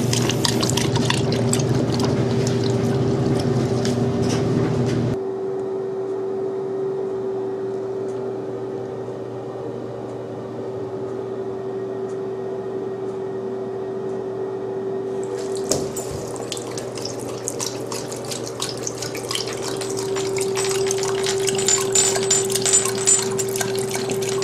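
Bathroom faucet running while a German Shorthaired Pointer laps water straight from the stream, with quick wet splashes and clicks. The water sound cuts off suddenly about five seconds in, leaving only a steady low hum, and starts again about fifteen seconds in with more lapping.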